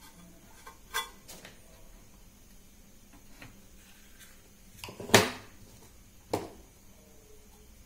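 Hard plastic tools and parts knocked and set down on a tabletop while the hot glue gun is put aside and a battery holder is picked up: a handful of sharp knocks, the loudest about five seconds in.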